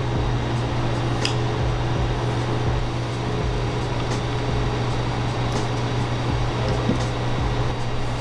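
Steady mechanical hum of kitchen equipment, like a ventilation fan or refrigeration unit running, with a few faint light clicks.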